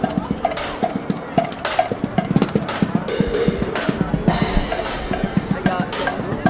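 Drums playing a fast rhythmic beat with other music: many quick strikes, over a repeated higher note.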